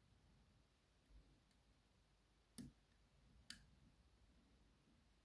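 Faint clicks of a lock pick working the pins of a DOM RS Sigma six-pin euro cylinder, with two sharper clicks about a second apart midway over a near-silent background.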